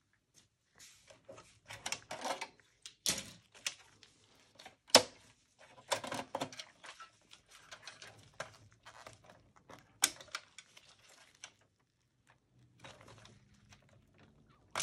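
Sheet-metal optical drive cage with blue plastic clips being unclipped and lifted out of a Dell OptiPlex 7080 small-form-factor chassis. Irregular clicks, taps and metal clatter, with a few sharper knocks, the loudest about five seconds in.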